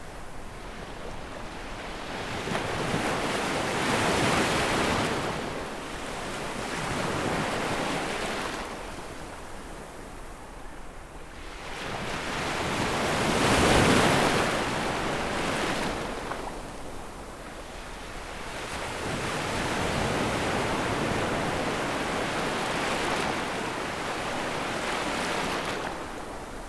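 Sea waves breaking and washing up over a sandy beach, a hissing wash that swells and fades in slow surges every few seconds, the loudest about halfway through.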